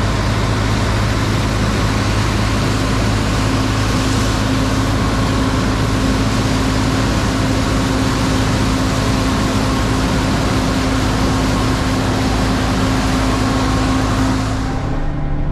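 Case IH 8940 tractor's diesel engine running steadily, with a steady low hum under a loud, even rush of noise. Near the end the rushing noise drops away suddenly, leaving the engine hum.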